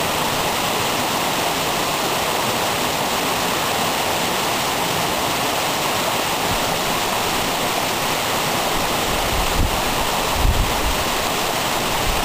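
Small waterfall in a rocky hill burn, water pouring and splashing steadily over the rocks. A few brief low bumps come about ten seconds in.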